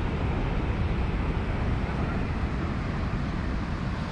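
Wind buffeting the microphone in a steady, uneven low rumble, over a continuous rush of surf.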